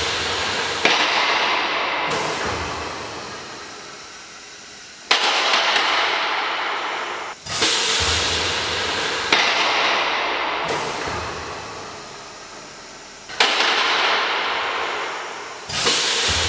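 A Finkbeiner Hebeboy pneumatic column lift cycling in steps: again and again, a sudden rush of compressed-air hiss that fades away over a few seconds. Each stroke starts with a sharp clank. The strokes come every two to four seconds.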